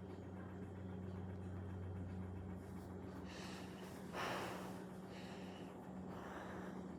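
A person breathing close to the microphone, in soft puffs with one louder breath about four seconds in, over a faint steady low hum.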